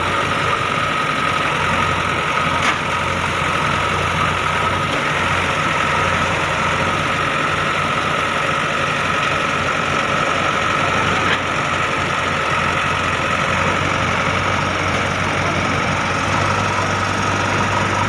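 Diesel engine of a JCB 3DX backhoe loader running steadily at idle, with a thin steady whine above the engine note.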